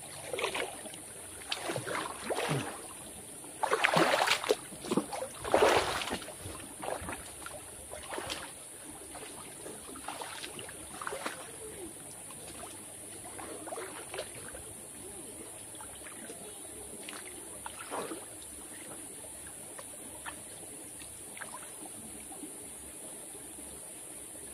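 Water splashing and sloshing as a person moves about in a shallow stream, over the steady running of the stream. The biggest splashes come about four to six seconds in, then smaller, scattered ones.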